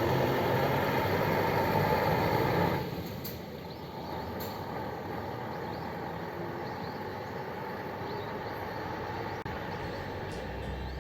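Sightseeing coach's diesel engine running close by, loud at first, then dropping away suddenly about three seconds in to a quieter steady hum.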